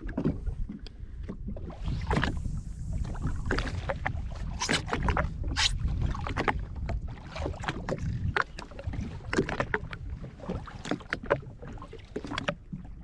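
Water slapping and lapping against the hull of a drifting Sea-Doo FishPro Trophy jet ski, over a low wind rumble on the microphone, with scattered small clicks and knocks throughout.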